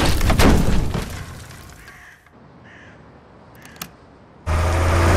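A loud crash with sharp impacts dies away over about two seconds into a hush. In the hush, faint bird calls and a single click are heard. Near the end a loud low drone cuts back in suddenly.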